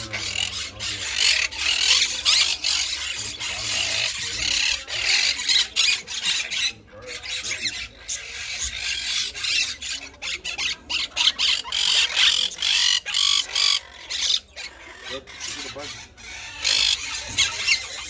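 A flock of small parrots (cockatiels, monk parakeets and budgerigars) chattering and screeching all at once, a dense, continuous tangle of many overlapping high-pitched chirps.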